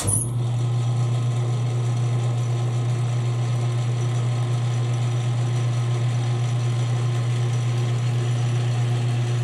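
Metal lathe switched on: its motor and drive start abruptly and then run at a steady speed with a strong, even low hum as the chuck spins.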